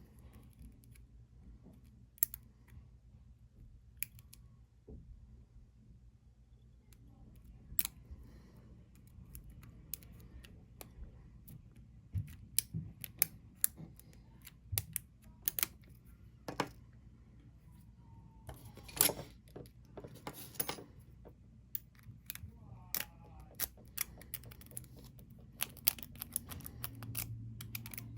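Small metal clicks and scrapes of a single-pin pick and tension bar working the pin tumblers inside a padlock, coming irregularly, more often in the second half and in a quick run near the end.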